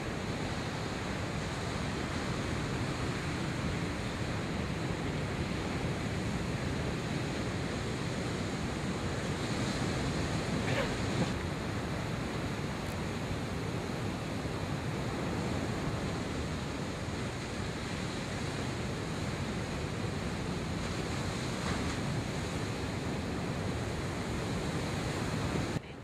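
Ocean surf: waves breaking and washing in, a steady rushing wash of white noise.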